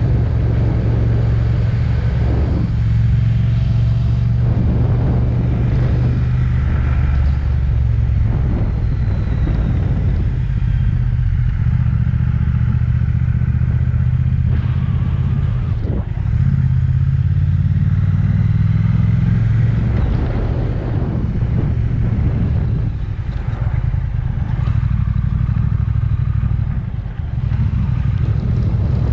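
Triumph motorcycle engine running while the bike is ridden, heard from the bike itself. Its pitch steps and rises through the gears about halfway through as it accelerates, and it briefly eases off near the end.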